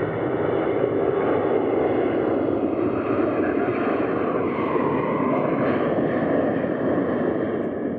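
Boeing 737-700's twin CFM56 jet engines at takeoff thrust during the takeoff roll: a loud, steady rush of jet noise with a faint whine, beginning to fade near the end as the jet moves off.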